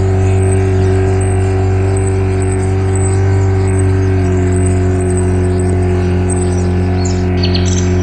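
Boat's outboard motor running at a steady speed under way. Short high bird-like chirps sound about twice a second over it.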